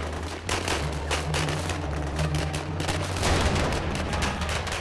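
Battlefield gunfire: rapid, overlapping shots from several rifles and automatic weapons in a sustained firefight, over a steady low drone.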